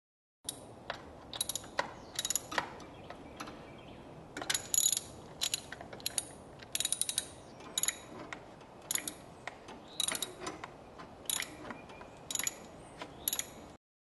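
Socket ratchet wrench on an extension clicking in short, quick runs, about one burst a second, as the handle is swung back and forth to turn a spark plug.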